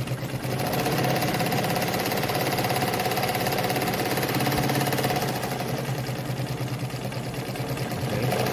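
Kohler WZ semi-industrial sewing machine running steadily at speed, sewing a narrow zigzag stitch, its mechanism making a fast, even clatter. It runs a little quieter for a couple of seconds past the middle, then picks up again near the end.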